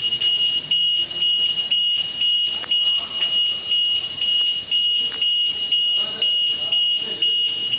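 A high-pitched electronic alarm tone pulsing about twice a second.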